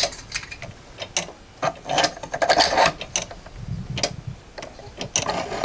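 Plastic gears and ratchet of a 3D-printed grasshopper escapement clock clicking and rattling while it is rewound. The escapement ticks roughly once a second, mixed with irregular ratchet clicks and a denser rattle about two to three seconds in.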